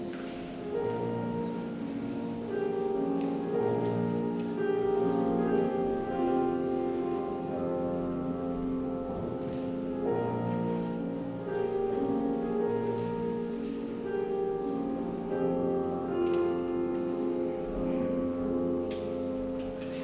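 Grand piano playing a classical piece solo.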